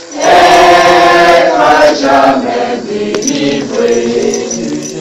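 A congregation singing a slow French hymn together, the voices holding each note for about a second.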